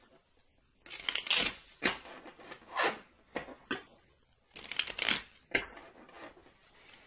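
Tarot cards being slid and handled on a burlap cloth: a run of short, irregular papery swishes and rustles.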